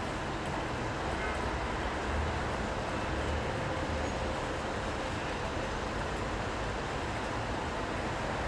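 City street ambience in the rain: a low traffic rumble that swells a couple of times, under a steady even hiss.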